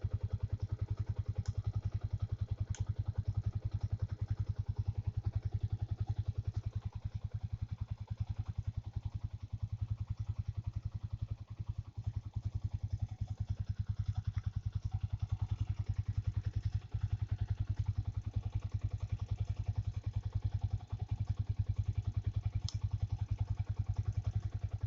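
Yamaha Vixion's single-cylinder 150 cc four-stroke engine idling steadily, its exhaust pulses beating evenly at a constant speed.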